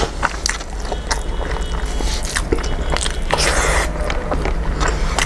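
Close-up eating sounds: chewing with a full mouth and fingers squishing and mixing rice on a clay plate, giving many short wet clicks and smacks, with a brief rustling burst about three and a half seconds in.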